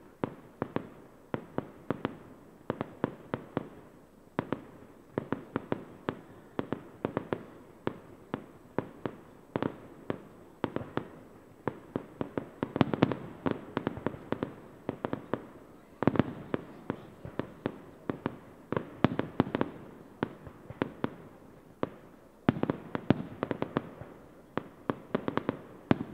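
Aerial fireworks display: shells bursting in a rapid, uneven run of sharp bangs, several a second, with louder bunches of bangs in the second half.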